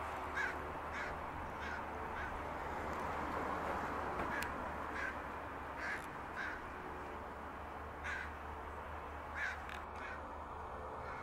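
American crow cawing repeatedly, in short runs of calls about half a second apart with gaps between runs, over steady background noise: the alarm caws of a crow mobbing a red-tailed hawk.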